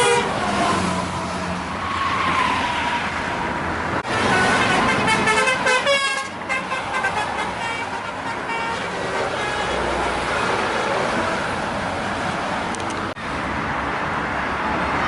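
Bus telolet horn, a multi-tone musical air horn, playing short stepping and gliding tunes over road traffic, loudest about four to six seconds in.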